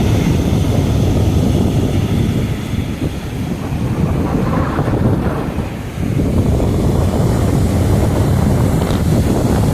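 Wind buffeting the microphone as a steady low rumble, easing for a moment about three seconds in and again about six seconds in.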